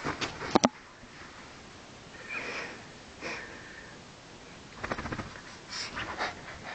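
Small dog sniffing and breathing noisily through its nose in short bursts, with some rustling of its bed near the start.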